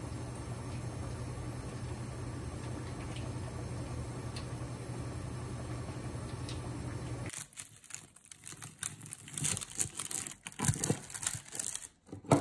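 Steady low hum and hiss at a gas stove while curry is stirred in a steel pot. About seven seconds in, a knife crunches through a crisp fried pork cutlet (tonkatsu) and its paper liner crinkles, in sharp irregular cracks.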